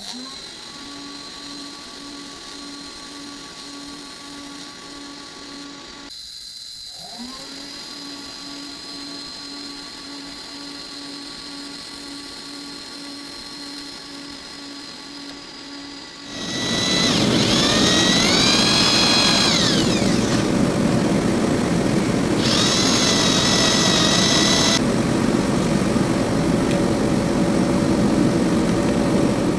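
Electric arc welding: a steady arc hum pulsing about twice a second, which stops briefly and starts again. About sixteen seconds in, a much louder power drill starts and runs, its pitch rising and falling, then holding steady.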